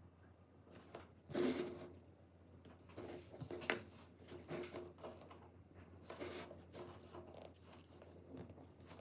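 Handling noises from work on a mobile phone: a series of short scraping and tearing sounds at uneven intervals, with a faint steady hum underneath.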